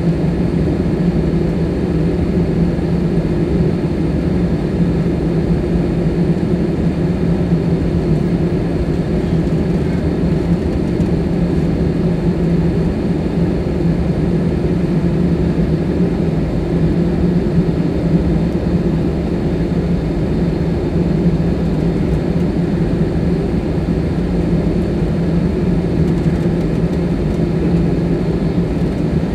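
Steady cabin noise inside an Airbus A319 standing with its jet engines idling: an even rushing hum with a low, steady drone.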